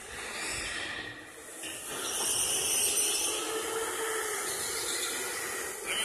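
Indoor electric go-karts running on the track: a steady hiss of tyres and motors that grows louder about two seconds in as a kart passes close.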